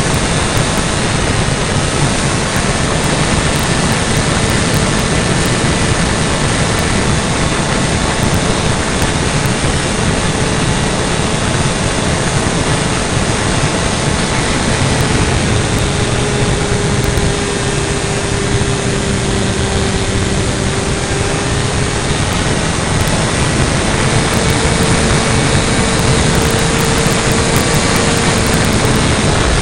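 Kyosho Calmato RC model airplane's engine and propeller running steadily in flight, heard up close from an onboard camera with heavy wind rush. The engine note dips slightly about halfway through and climbs back up near the end.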